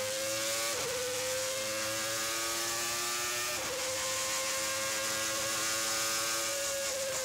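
Williams FW16 Formula 1 car's Renault V10 engine at high revs on a flying lap, a high, steady note that climbs slightly and holds, with brief breaks about a second in and again past three and a half seconds.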